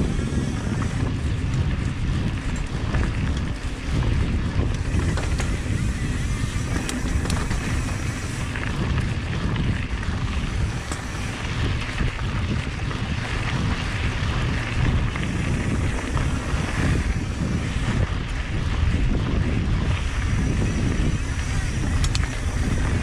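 A mountain bike riding down a dirt trail. Heavy wind rumble buffets the microphone over a steady hiss and rattle of tyres rolling on the ground, with occasional faint clicks.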